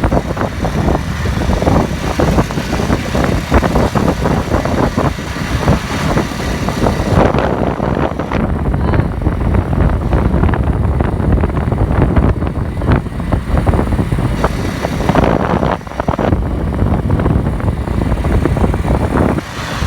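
Car on the move, a loud steady rumble with frequent knocks and rattles.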